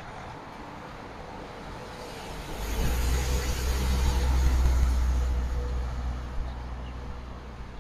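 A small paratransit shuttle bus passes close by: its low engine rumble and tyre noise swell about two and a half seconds in, peak, then fade away over the next few seconds, over steady background traffic.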